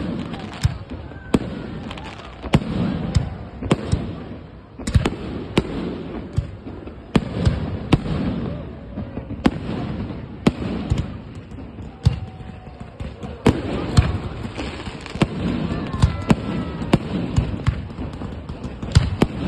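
Fireworks going off: an irregular string of sharp bangs and pops, roughly one a second, as comets and shells are launched and burst.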